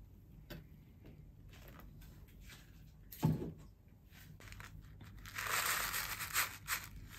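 A single dull thump about three seconds in, then a paper seed packet crinkling and rustling as it is handled, loudest in the last two seconds.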